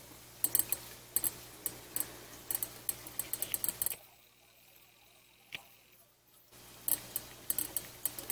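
Thin clear plastic packaging being handled, giving a string of short, sharp clicks and crackles. The clicking stops for about two and a half seconds midway, with one lone click in the gap, then resumes.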